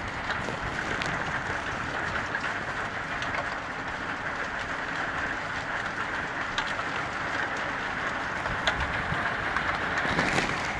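Steady heavy rain falling, with scattered sharp ticks of individual drops striking nearby surfaces.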